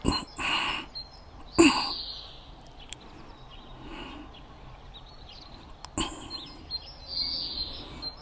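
A man drinking from a folded palm-leaf cup in several loud gulps and slurps, the loudest about one and a half seconds in, with birds chirping faintly behind.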